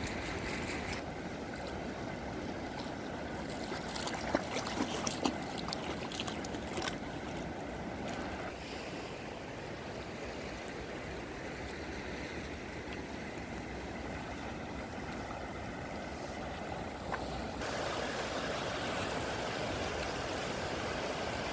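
Steady rushing of river water, with a few light knocks a few seconds in; the rush grows slightly louder near the end.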